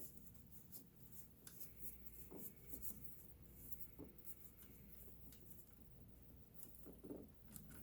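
Near silence with faint, scattered light clicks and rubbing: hands handling parts of a sewing machine.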